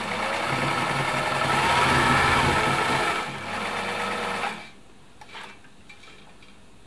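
1972 Elna Supermatic SU 62C sewing machine running a straight stitch through fabric. It speeds up over the first couple of seconds, runs on steadily, eases slightly and stops about four and a half seconds in.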